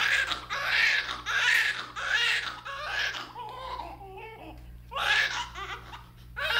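Newborn baby crying in a run of short, loud wails, each under a second, easing off about three seconds in and then starting up loudly again.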